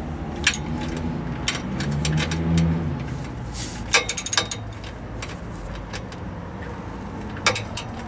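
Metal clicks and clinks of a combination wrench on the exhaust flange nuts as they are tightened back up. Underneath is a steady low rumble that swells for about a second near two seconds in.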